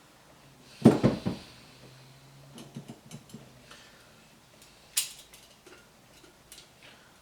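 Metal hand tools clattering and clinking: a loud jumble of knocks about a second in, then scattered lighter clicks and one sharp click about five seconds in.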